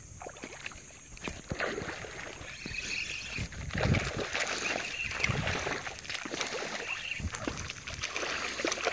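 A hooked tararira (trahira) thrashing at the surface of shallow muddy water, making repeated irregular splashes that start about a second in and grow louder as it is reeled close.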